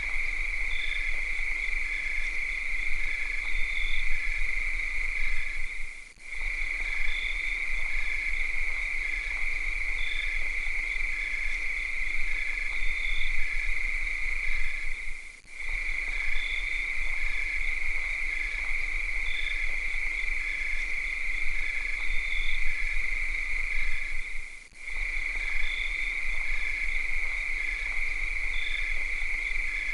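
Cicadas singing in a steady, shrill drone, with a faster pulsing chirp repeating over it. The sound dips briefly about every nine seconds, three times.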